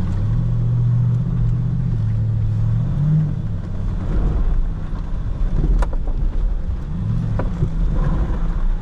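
Jeep Wrangler EcoDiesel's V6 turbodiesel running under way, heard from inside the cab. Its engine note rises and falls with the throttle over tyre noise from a dirt road. Two sharp knocks come about six and seven seconds in.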